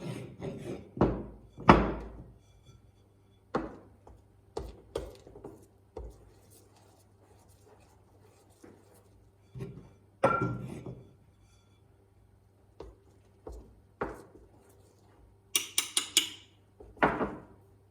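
Scattered thuds and knocks of a mixing bowl and kitchen utensils as flour is added and the bun dough is mixed, with one brief ringing clink about ten seconds in and a quick rattle of clatters near the end.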